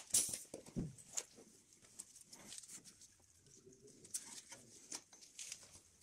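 Light metal clicks, knocks and scrapes of a brake caliper being handled and brought up to new front brake pads seated in the caliper bracket, with a sharp knock at the very start.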